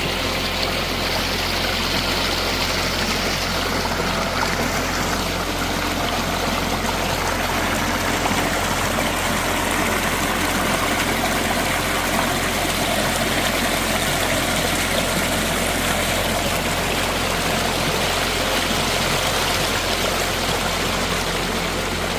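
Sheep River's water rushing and flowing, a steady, even noise with no let-up.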